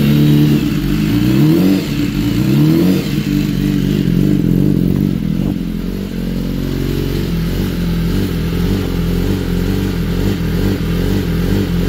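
BMW S1000RR superbike's inline-four engine warming up from a cold start on a raised idle, blipped a few times so the pitch rises and falls, then settling into a steadier idle about halfway through. The high idle and blips are pumping up oil pressure to get thick, cold oil to the head.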